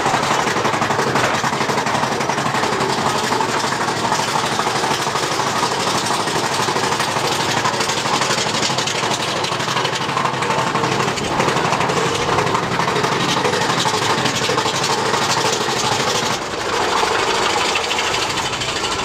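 Big Thunder Mountain Railroad mine-train roller coaster running along its track, heard from aboard the train: a loud, steady rattling clatter of wheels and cars.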